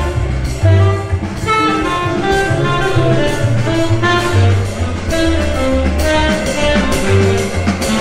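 Jazz recording with a prominent, moving bass line, played over a high-end hi-fi system through Martin Logan Neolith hybrid electrostatic loudspeakers.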